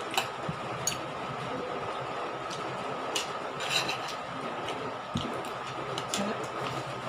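Spoons and forks clinking against plates and glasses at a meal table, a handful of short light clinks over a steady background hum.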